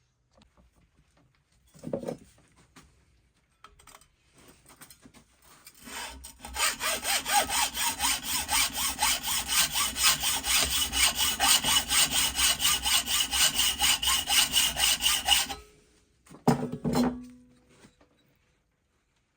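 Rapid back-and-forth strokes of a hand tool working metal, about four strokes a second for some nine seconds, typical of cleaning up a fresh aluminium casting. A short knock comes near the start and another just after the strokes stop.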